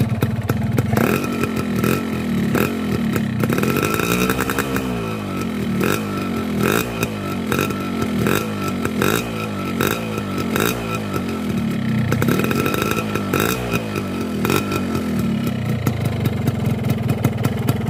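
Two-stroke motorcycle engine running from a cold start on a rich oil mix of 10 ml of two-stroke oil per litre of petrol, heard at the exhaust. Its revs rise and fall twice, about four seconds in and again about twelve seconds in. The engine sounds normal and a little crisp.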